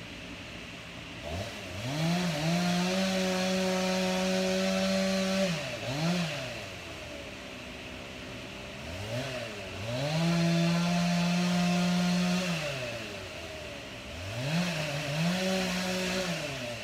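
Two-stroke chainsaw revved to full throttle three times. Each run rises steeply and holds a steady high pitch for a couple of seconds, the longest about three, then drops back to idle, with a short blip of throttle between runs.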